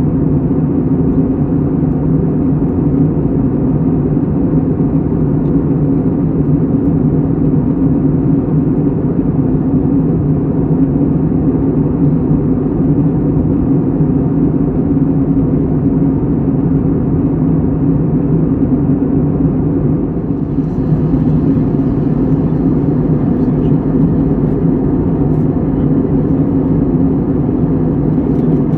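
Steady, loud low rumbling drone with a constant low hum running through it, like engine noise heard from inside a moving vehicle or vessel.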